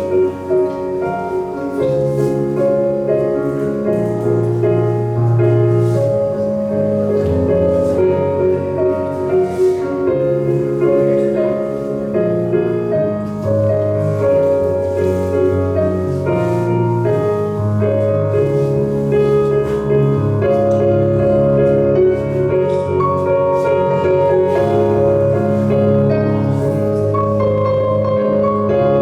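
Background music led by piano with a steady beat.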